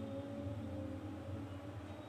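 Steady low background hum with no distinct events.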